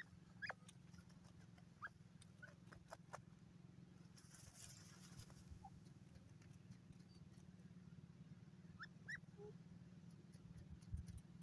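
Near silence: a steady low hum, with a few faint, short rising chirps near the start and a pair of them near the end, plus some faint clicks.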